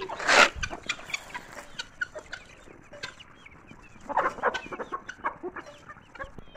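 Flock of chickens clucking while feeding on scattered corn kernels, with clusters of calls near the start and again about four seconds in.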